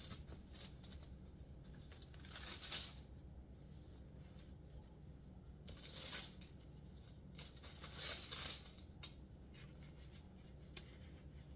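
Disposable plastic food-prep gloves crinkling and rustling as sandwich bread is handled, in three short bursts about two and a half, six and eight seconds in, over a low steady hum.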